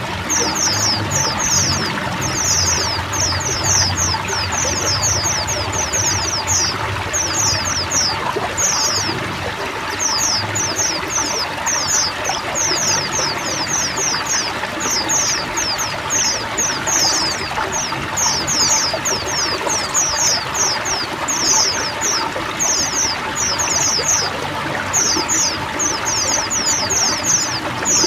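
A chorus of many white-eyes (pleci) singing rapid, high twittering trills without pause, over a steady trickle of running water.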